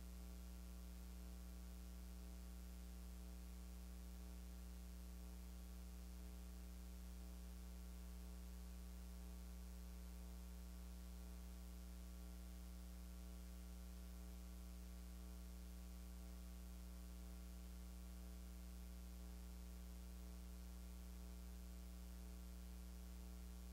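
Steady, faint electrical mains hum with a light hiss, unchanging throughout; no singing or speech comes through.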